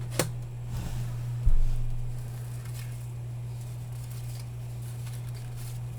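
Baseball cards being handled and shuffled: a sharp click just after the start, a low thump about one and a half seconds in, then faint soft rustles, over a steady low hum.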